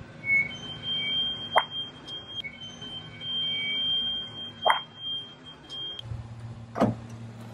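A car tyre squashing a soft rubber squishy ball: two short squeaks about three seconds apart, over a steady high-pitched tone that breaks off once and then stops about six seconds in. A low steady hum follows.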